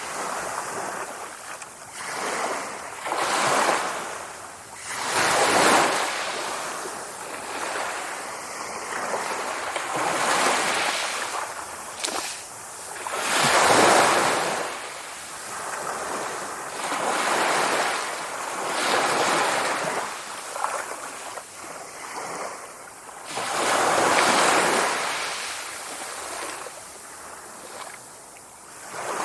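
Sea waves breaking and washing in, swelling and fading every few seconds, with the strongest surges about 6, 14 and 24 seconds in.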